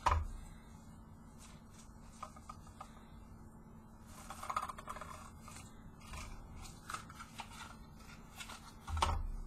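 Faint rustling and small clicks of a glittery white ribbon being pulled off its plastic spool and handled, with a soft knock near the end.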